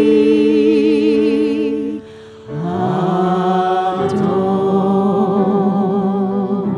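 Worship singing of a Hebrew song: voices hold long notes with vibrato, break off briefly about two seconds in, then come back with a new held phrase.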